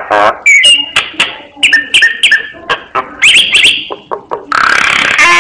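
Myna singing a varied, fast run of short whistles, clicks and chattering notes, with a harsh grating call near the end.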